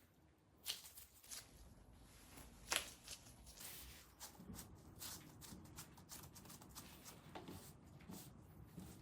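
Faint kitchen handling sounds: scattered light clicks, taps and rustles, with a sharper click about three seconds in.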